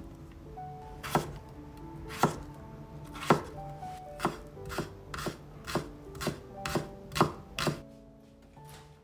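Chef's knife slicing king oyster mushrooms on a wooden cutting board: about eleven sharp knocks of the blade against the board, one a second at first, then quickening to about two a second before stopping near the end. Soft background music plays under it.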